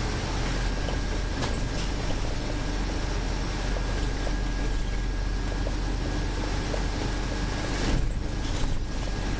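Scania Citywide city bus driving along a street, heard from the driver's seat: a steady run of engine and road noise, with a couple of brief knocks near the end.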